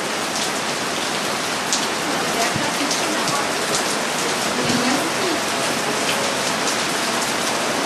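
Heavy rain falling steadily, a dense even hiss with single drops striking close by as sharp ticks now and then.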